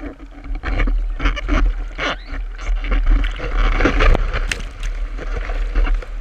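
Whitewater of a broken wave rushing around a surfboard, with repeated splashes of spray striking a camera on the board's nose over a steady deep rumble of water and wind buffeting its microphone.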